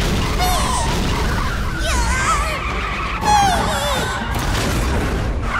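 Cartoon race-battle sound effects: a steady low rumble with several squealing tyre skids, the loudest a falling squeal a little over three seconds in.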